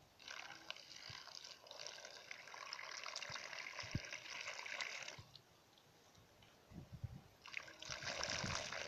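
A thin stream of water pouring and splashing onto a smartphone lying in a shallow plastic tray. It breaks off for about two seconds after five seconds, then starts again near the end.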